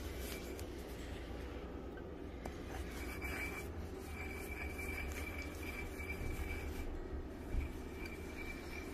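Stone pestle grinding steadily in a three-legged volcanic-stone mortar (molcajete), rasping the dry chili-salt mix against the rough stone. One brief louder knock comes about three-quarters of the way through.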